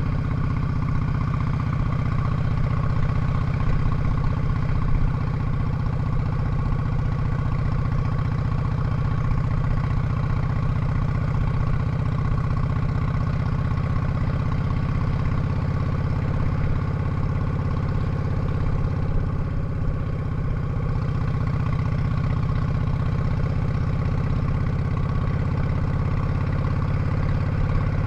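Cruiser motorcycle engine running steadily at an even cruising speed while riding on a gravel road.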